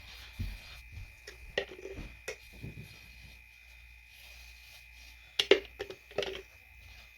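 Scattered light knocks and clicks of a tire and steel rim being handled, two sharper knocks near the end, over a faint steady high-pitched whine.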